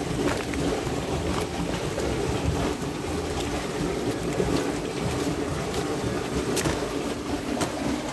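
A steady low rushing rumble throughout, with a few short sharp crackles of a woven plastic sack being folded and handled, the clearest two near the end.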